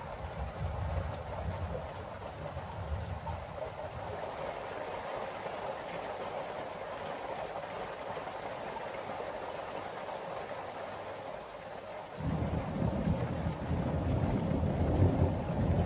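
Steady rain falling during a thunderstorm, with a low rumble of thunder fading over the first few seconds. About twelve seconds in, a new peal of thunder breaks in suddenly and keeps rumbling, growing louder.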